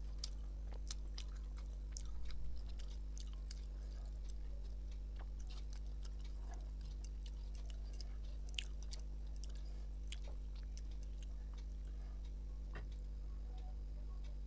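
Close-miked eating sounds: soft chewing and small wet mouth clicks while eating rice, dal and greens by hand, over a steady low hum.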